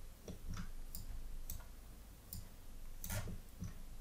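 Computer mouse clicking: a handful of separate, irregular clicks, the loudest a little after three seconds in.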